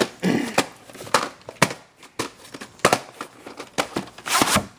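A run of irregular sharp clicks and crackles, several a second, with a louder cluster near the end.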